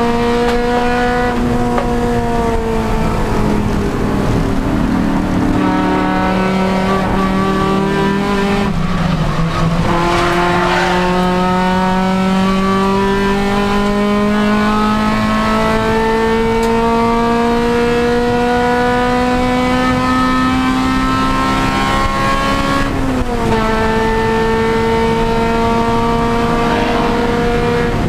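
Honda Civic Si race car's four-cylinder engine running hard under racing load: the revs fall a few seconds in and bottom out around nine seconds in, then climb slowly for about a dozen seconds. They drop sharply with an upshift about two-thirds of the way through and dip again near the end.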